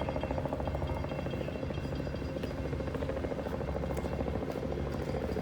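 Helicopter rotor chopping with a rapid, steady beat.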